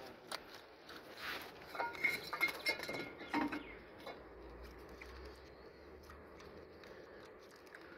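Light clicks and clinks of an injector wiring-harness connector being handled and pushed onto a diesel engine injector. The clicks bunch together between about two and three and a half seconds in, then only faint handling follows.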